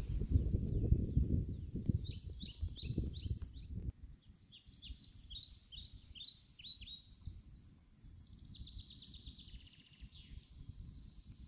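Songbird singing outdoors: a long run of short, high chirps, each falling in pitch, repeated about two to three times a second. Low rumbling noise, like wind on the microphone, fills the first four seconds and stops abruptly.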